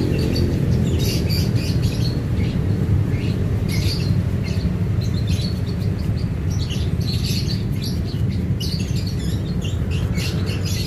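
Small birds chirping repeatedly in short high calls over a steady low rumble.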